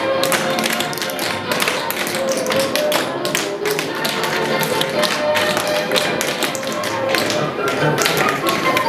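Several dancers' tap shoes striking a wooden parquet dance floor in a fast, uneven clatter of taps, over holiday music.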